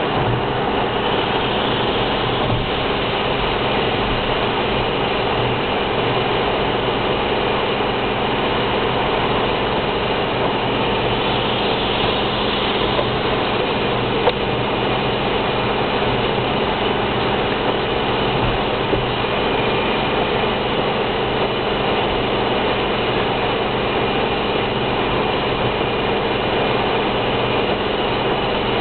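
Steady road and engine noise inside a car's cabin at motorway speed, with tyres hissing on a wet road. There is a single short knock about halfway through.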